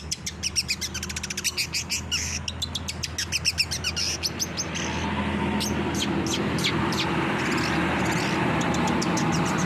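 Long-tailed shrike (cendet) singing a fast chattering run of short, high notes. About five seconds in, a steady hiss rises underneath while the bird keeps giving separate sharp notes.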